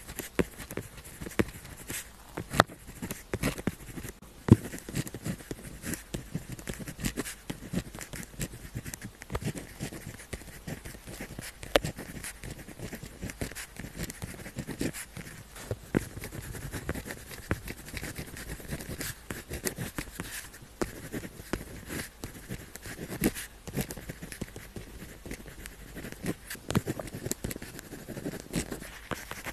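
Pen tip scratching across paper in irregular writing strokes, with frequent short sharp ticks.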